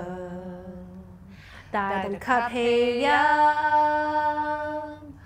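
A woman's unaccompanied voice in long, drawn-out sung tones. The longest note is held steady for about two seconds near the end.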